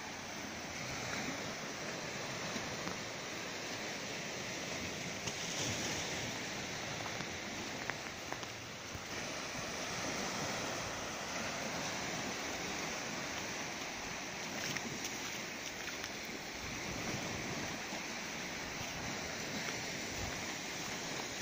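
Small sea waves breaking and washing onto a sandy shore: a steady surf rush that swells and eases gently.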